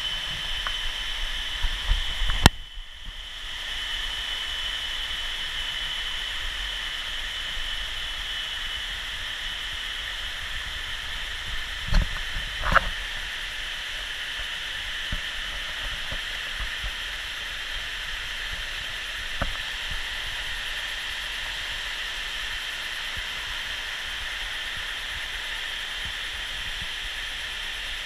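Waterfall cascades running steadily over rock terraces, an even rushing of water with a faint steady high tone under it. There is a sharp click about two and a half seconds in and a couple of soft knocks around the middle.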